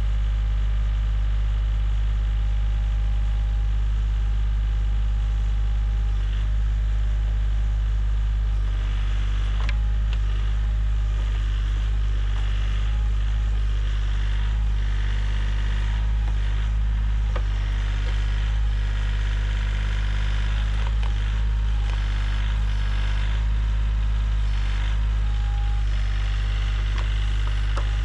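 An engine running steadily at one speed, with a few faint knocks and clatters over it.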